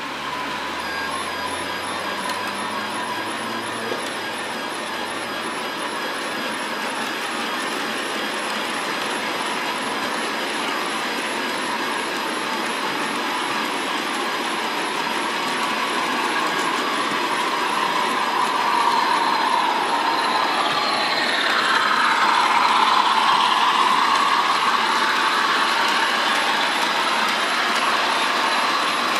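Model train of Accurascale Cemflo/PCV bulk cement wagons rolling past: a steady rumble of wheels on track that grows louder in the second half. A wavering tone swells and bends about two-thirds of the way in.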